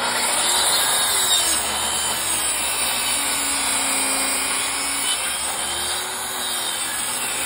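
Bosch track saw starting abruptly and cutting steadily through thick, hard old Douglas fir on a 45-degree bevel. The saw is working at the outer limit of what it handles comfortably, pushed slowly through the cut, with a blade dulled a little by small screws it has cut through.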